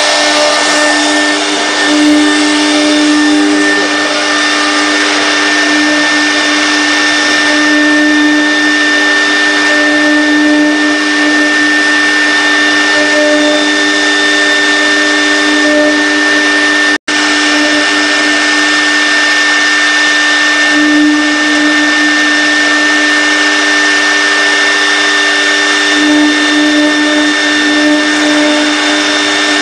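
Air-cooled spindle of a CNC router running at high speed with a steady whine while its cutter mills a metal plate, with cutting noise over the whine. The sound breaks off for an instant a little past halfway.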